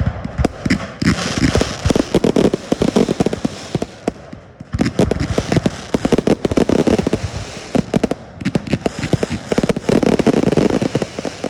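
Fireworks display firing rapid volleys of sharp bangs and dense crackling, coming in three loud waves with short lulls between them.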